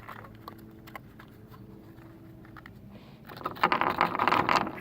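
Faint small clicks, then about three seconds in a loud rustling clatter from .22 cartridges and their box being handled while loading a revolver.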